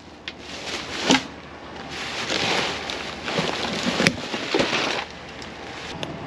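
Plastic trash bags and cardboard boxes rustling and crackling as they are rummaged through by hand inside a metal dumpster, with scattered sharp clicks and a sharp knock about four seconds in.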